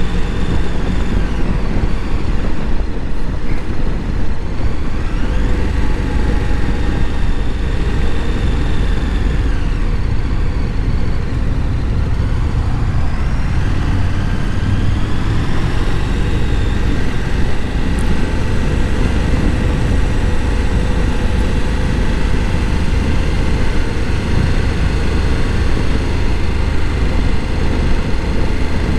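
Wind rushing over a helmet-mounted microphone on a motorcycle under way, with the 2023 KTM 1290 Super Adventure S's V-twin engine running underneath, its pitch drifting gently up and down with the throttle.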